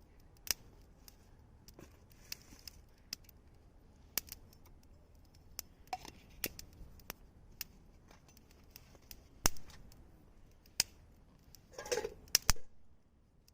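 Campfire crackling: irregular sharp pops and snaps of burning wood, with a few louder cracks and a short cluster of them near the end.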